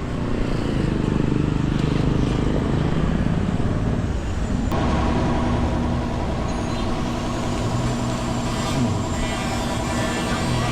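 A motor vehicle engine running close by, steady and loud; about halfway through, a steadier droning tone with a clear pitch joins in and holds.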